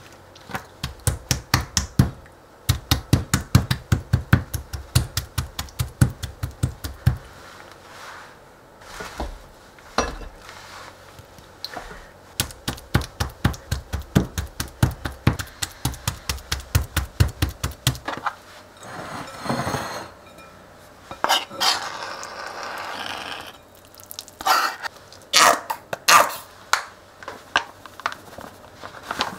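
Chef's knife rapidly chopping raw shrimp into a paste on a plastic cutting board, about five or six strikes a second, in two long runs. Near the end come scraping and a few sharp knocks.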